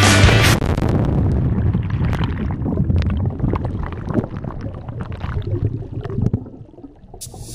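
Water rushing and bubbling around a camera plunging into the sea, heard underwater as a rough rumble with small knocks that fades over several seconds. Rock music cuts off about half a second in and comes back near the end.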